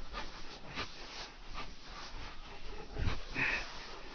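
Footsteps and a pitchfork crunching and scraping through a dry compost pile of wood chips, with a heavier thump about three seconds in.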